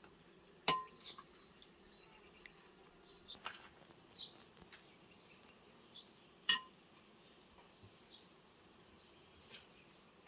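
Kitchenware clinking: two sharp clinks with a brief ring, one about a second in and one about six seconds later, with a few softer taps and clicks between them.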